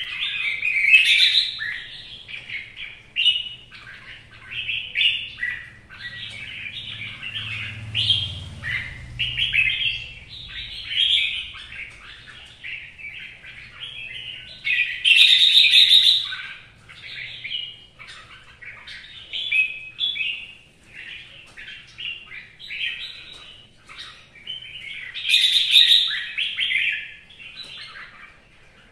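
Red-whiskered bulbul singing without pause, a string of short, quick warbled phrases. It gets noticeably louder three times: about a second in, around the middle and near the end.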